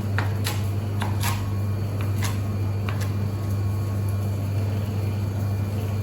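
A knife cutting romaine lettuce on a cutting board, about six taps in the first three seconds and then none, over a steady low hum.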